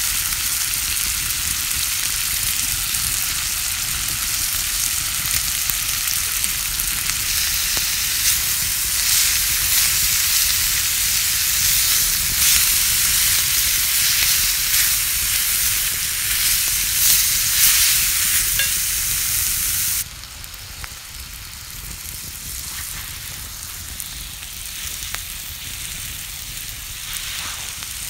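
Bacon, onion and mushrooms sizzling in a cast-iron pan over an open fire, stirred with a wooden spatula, with scattered crackles and spatters. About twenty seconds in the sizzle drops suddenly to a quieter, steady frying.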